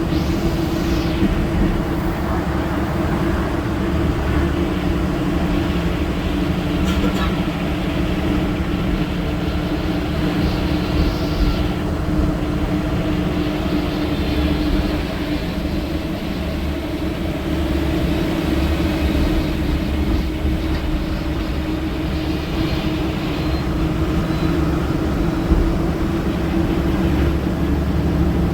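Ashok Leyland BS-VI diesel bus engine running steadily under way, with a constant drone and low road rumble as heard inside the bus cabin.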